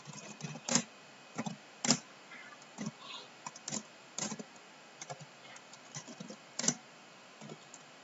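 Typing on a computer keyboard: a run of irregularly spaced keystrokes, some louder than others.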